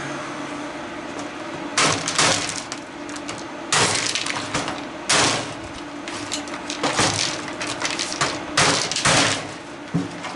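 Hard molded plastic cracking and snapping as it is pried apart, a series of sharp cracks every second or two after the first couple of seconds.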